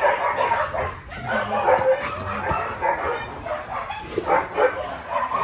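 Husky–Alaskan malamute puppy whimpering and yipping in short, irregular calls.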